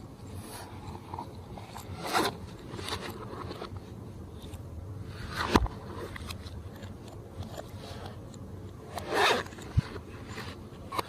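Hands working glossy slime, kneading and stretching it, with three louder sticky squishes spaced a few seconds apart.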